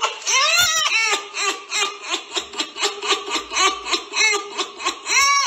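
A person laughing: a long, loud run of quick, high-pitched laughs, several a second.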